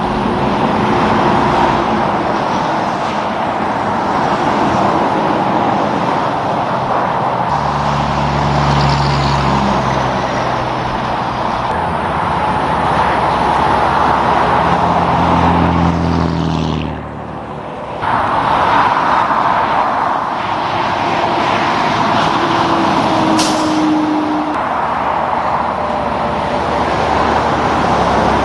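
Highway traffic going by: steady tyre and road noise, with the low drone of heavy trucks' diesel engines passing twice.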